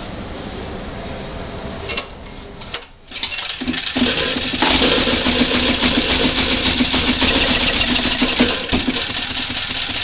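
Small gasoline generator engine, running on diesel with a capacitor-discharge plasma spark ignition, catching about three seconds in after a steady hiss and a couple of clicks. It then runs steadily with a rapid, even firing rattle.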